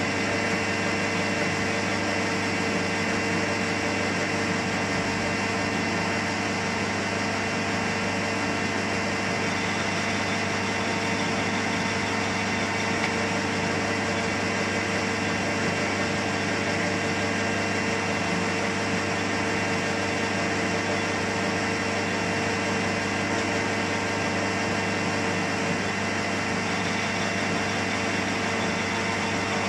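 Metal lathe running at a steady speed, its spindle and four-jaw chuck turning with an even machine hum made of several steady tones, with no change in speed.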